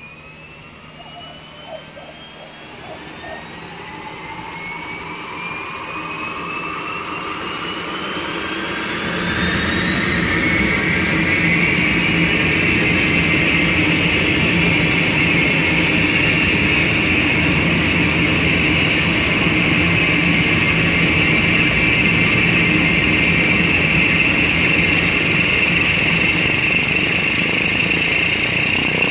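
Cessna 208 Caravan's Pratt & Whitney PT6A turboprop engine starting up: a whine that rises steadily in pitch as the engine spools up, turns suddenly louder and fuller about nine seconds in, then settles into a steady high whine over a low propeller hum.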